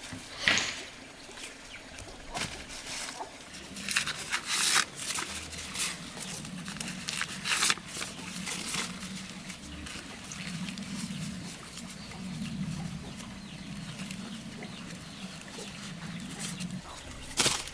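Chickens in a farmyard, with scattered sharp knocks and clicks and a low steady hum through most of the middle.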